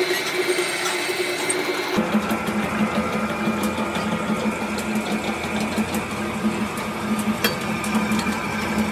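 Pillar drill press running steadily while drilling a steel flat bar, a constant machine hum. About two seconds in the sound changes abruptly to a lower steady hum with faint light ticking.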